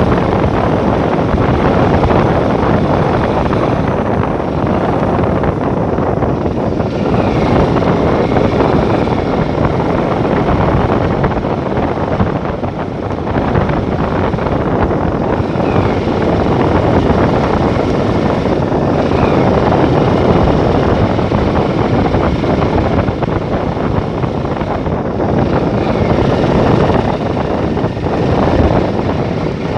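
Steady, loud rushing noise of travel in a moving vehicle, with wind on the microphone.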